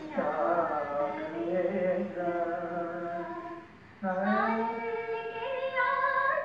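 Indian classical-style vocal singing, held melodic notes with slow glides, heard through a television speaker, breaking off briefly about four seconds in before the line resumes.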